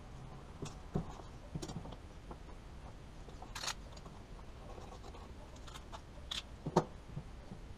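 Faint, scattered clicks and taps of hand tools, a combination square and a pencil, being handled and set down on a rubber-matted workbench, with a brief scrape about halfway through and a sharper knock near the end.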